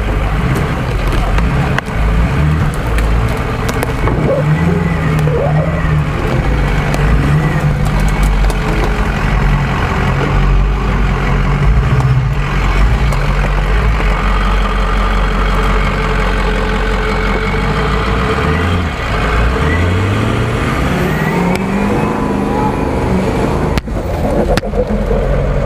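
Ford F-250 Super Duty pickup's engine running under load as the truck crawls over rough ground, the revs rising and falling; about three-quarters of the way through, it revs up steadily.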